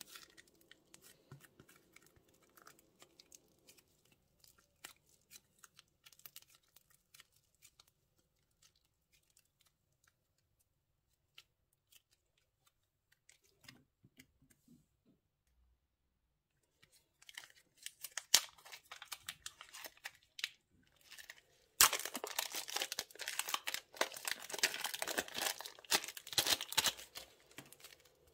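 Plastic bags being crinkled and torn open. After faint scattered ticks and a near-silent stretch, dense crinkling starts past the middle and grows loudest near the end.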